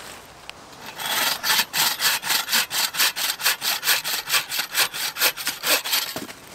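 Small hand saw cutting through a dead birch branch in quick, even strokes, about five a second, starting about a second in and stopping just before the end.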